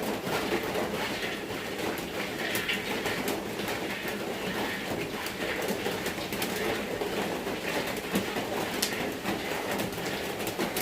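Rain falling on an iron-sheet roof: a steady, dense clatter of drops.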